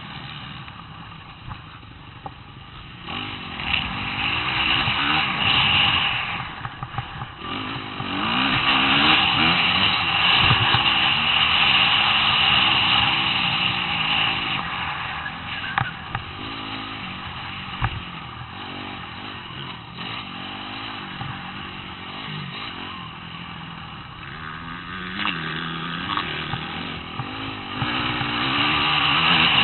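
Dirt bike engine revving up and down as the rider works the throttle around a motocross track, heard from on board the bike, louder in long pulls and easing off in between. A couple of sharp knocks come through about halfway.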